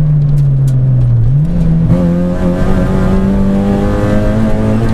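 Rally car's engine heard from inside the cabin at speed. The engine note sags for about a second, picks up sharply, then climbs steadily as the car accelerates.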